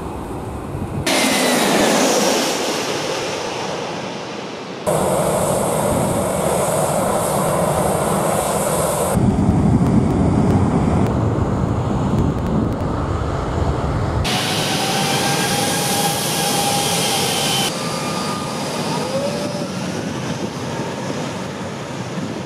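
Jet airliner engines running at high power with the rushing roar of jet blast. It comes in several pieces that change abruptly, with a faint engine whine heard in places.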